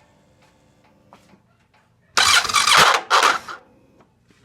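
Honda Pioneer 700 starter cranking the engine in one loud burst of about a second and a half, beginning about two seconds in, with a short break partway through. The starter is failing.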